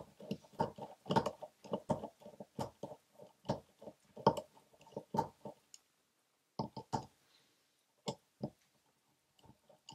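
Small, irregular metallic clicks and taps of a screwdriver and steel parts as the trigger guard screws come out of a Colt Single Action Army revolver's frame. The clicks come thick for the first half, then thin out to a few scattered ones.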